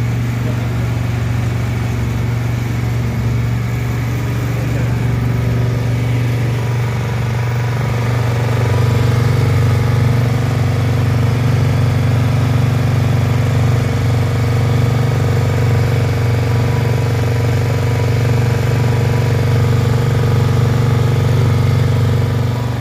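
Honda GX80 single-cylinder four-stroke petrol engine running steadily, powering a sugarcane juice machine. The engine hum gets louder about a third of the way in and holds there.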